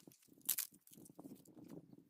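One last sharp chop into wood about half a second in, then an irregular crunching rustle of dry leaves and sticks being stepped on or handled.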